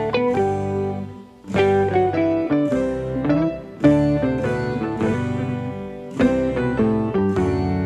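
Background music led by a plucked guitar playing a run of separate notes, with a brief gap about a second in.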